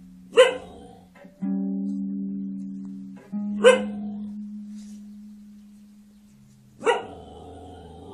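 A dog barks three times, about three seconds apart, between slowly fading plucked-string notes like a guitar's.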